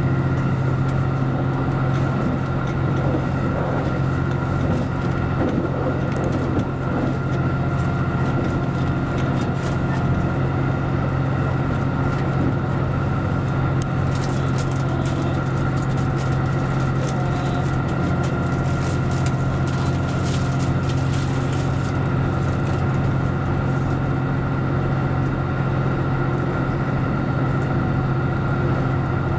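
JR Central Series 85 diesel multiple unit running at speed, heard from the front of the lead car: a steady drone of its Cummins diesel engines and running gear with a low hum. Scattered clicks come from the wheels on the track.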